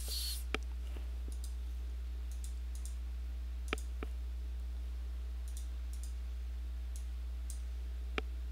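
Computer mouse clicking: four single clicks a few seconds apart, two of them close together in the middle, as pieces are placed on an on-screen chessboard. A steady low electrical hum runs underneath, and a short hiss comes at the very start.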